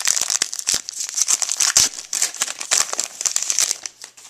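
The wrapper of a 2011 Allen & Ginter trading-card pack being torn open and crinkled by hand: a dense run of sharp crackles that thins out near the end.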